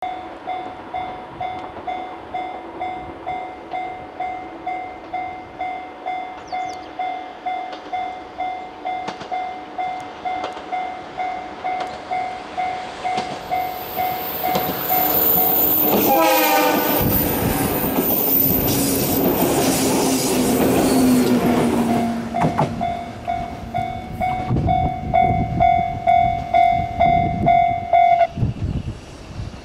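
Railway level-crossing warning bell ringing steadily about twice a second. About sixteen seconds in a train sounds its horn, the pitch falling as it passes, and rushes through the crossing with its wheels clacking over the rail joints. The bell rings on after it and stops near the end.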